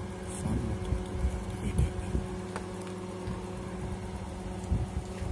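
Steady electrical hum with a low, uneven rumble underneath and a few faint clicks and knocks.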